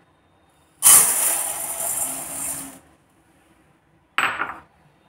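Granulated sugar poured from a glass bowl into a stainless steel bowl, the crystals hissing onto the steel for about two seconds, starting about a second in. A short ringing clink comes about four seconds in.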